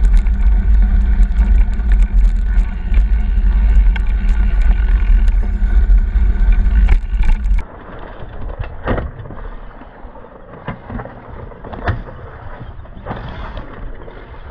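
Wind buffeting the camera microphone on a moving mountain bike, a loud heavy rumble with scattered clicks. About seven and a half seconds in it cuts to quieter riding noise: the knobby tyre rolling over dirt, with irregular knocks and rattles from the bike.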